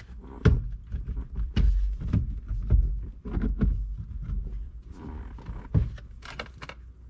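Handling noise while a steering wheel and its wiring are fitted back onto the column: irregular knocks, clicks and rustling of plastic and wires over a low, uneven rumble.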